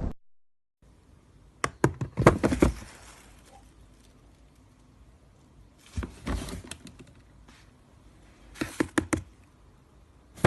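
Four short clusters of sharp knocks and taps, a few seconds apart, over faint room noise.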